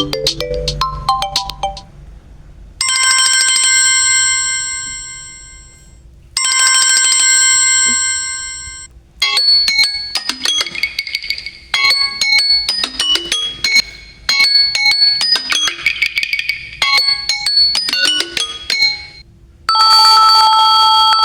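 Samsung Galaxy A05s ringtones and notification tones playing one after another. The end of a short melodic phrase, then two identical bell-like chimes that each fade over about three seconds, then about ten seconds of quick, bright, short notes in a pattern, and near the end a new steady ringing tone begins.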